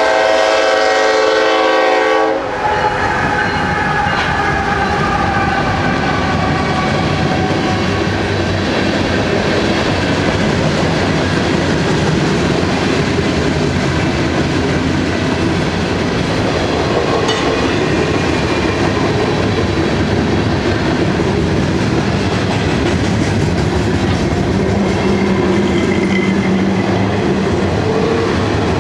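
Norfolk Southern freight train led by a GE ES44AC locomotive: its air horn sounds and cuts off about two seconds in. Then the locomotives and a long line of freight cars roll past in heavy rain, with a steady rumble and wheel clatter.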